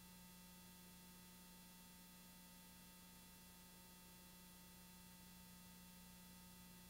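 Near silence: only a faint steady hum and hiss, with no events.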